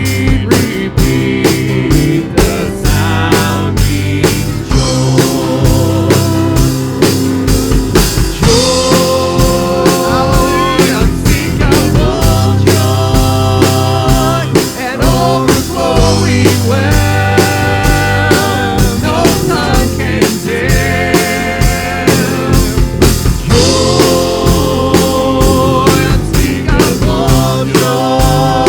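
Live worship band playing a rock-style song: a steady drum-kit beat with bass and electric guitar, and a wavering melody line over it.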